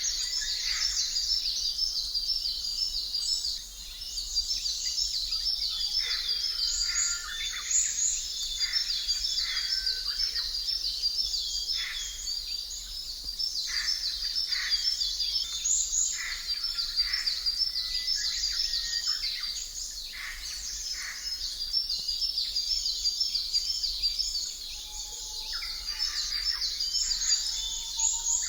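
Nature-ambience soundscape of many birds chirping and singing without pause, with dense high repeated chirps and scattered lower calls.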